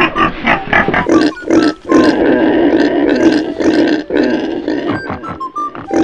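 Pig grunts and snorts for the cartoon pig family, loud: a quick run of separate snorts in the first second, then a dense, nearly unbroken stretch of grunting with brief gaps.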